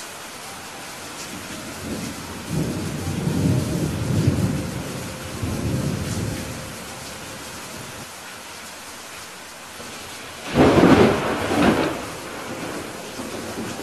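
Steady rain hissing throughout, with thunder: a low rolling rumble swells from about two seconds in and lasts several seconds. Near the end a sharper, louder thunderclap breaks out and dies away within about a second and a half.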